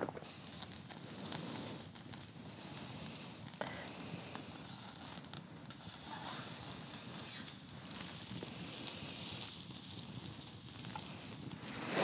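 Chicken sizzling on a wire grill grate over campfire embers: a steady hiss with small crackles from the fire.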